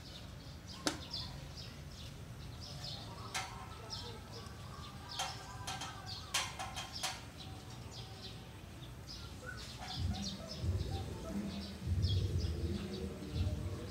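Small birds chirping over and over, with a few sharp clicks in the first half and a low rumble from about ten seconds in.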